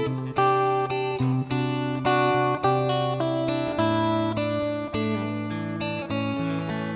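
Background music: acoustic guitar strummed and plucked, changing chords every second or so.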